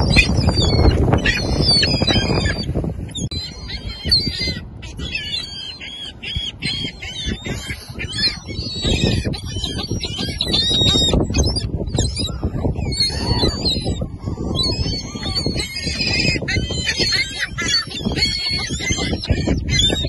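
A flock of gulls calling, many short squealing cries overlapping one another, over a low rumble that is loudest for the first couple of seconds.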